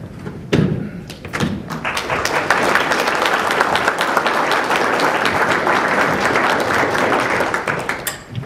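Audience applauding in a hall: a dense patter of clapping that builds up about a second and a half in, holds steady, and dies away near the end. A single thump comes just before it, about half a second in.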